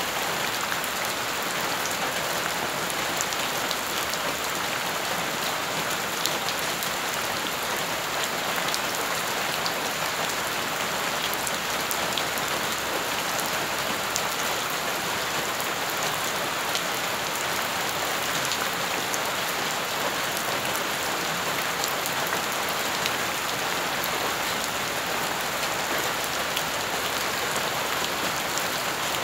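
Rain falling onto wet ground and shallow puddles: a steady, even hiss of splashing water dotted with many small ticks of single drops.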